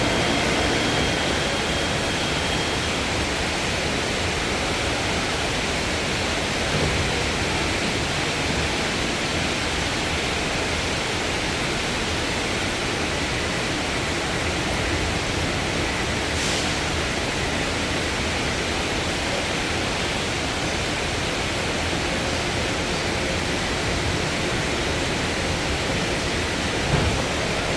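Heavy rain pouring steadily, a dense even hiss, with a couple of faint thumps.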